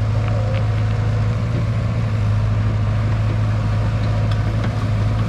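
Cat E120B excavator's diesel engine running steadily with a constant low hum while the machine pushes a tree over.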